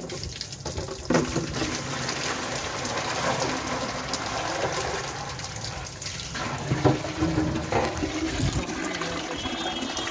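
Water running from a wall tap into a plastic bucket as a steel pot is rinsed in it, with a few sharp knocks of metal against the bucket.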